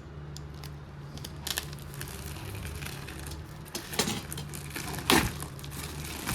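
Packaging of a keyboard box being handled and opened: crinkling and rustling, with a few louder brief scrapes around four and five seconds in.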